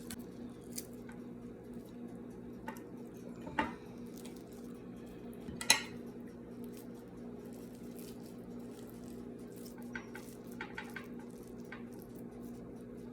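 Cutlery clinking and scraping against a plate, with scattered light taps and two sharper clinks, the louder about five and a half seconds in, over a steady low hum.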